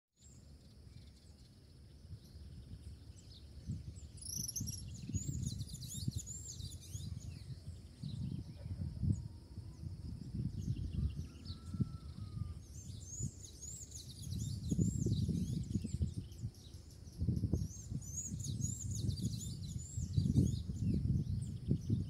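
Small birds chirping in quick clusters of short high notes, thickest a few seconds in and again over the second half. Under them runs a louder, gusty low rumble of wind on the microphone.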